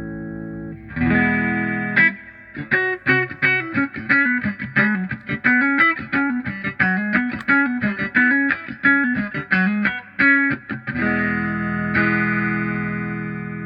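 Electric guitar played through a Vox 846 hand-wired wah pedal: a held chord, then several seconds of fast picked single notes in a repeating up-and-down phrase, then another sustained chord near the end.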